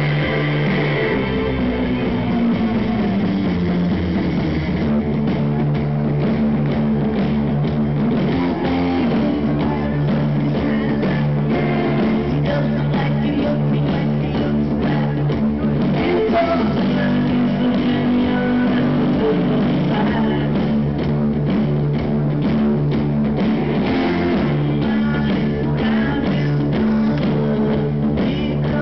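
Rock band playing live, heard from the crowd: electric guitars, bass and a drum kit.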